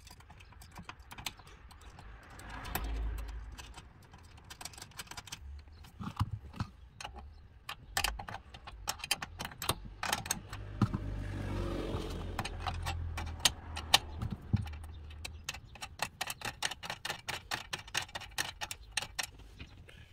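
Irregular clicks and knocks of metal seat-base hardware, the rails and mounting mechanism under a van seat, being worked loose by hand, with the clicks coming thicker near the end. A low rumble swells twice along the way.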